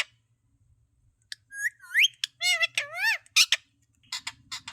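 A parrot whistles one rising note, then breaks into a short run of high-pitched, speech-like chatter, with a few short clicks near the end.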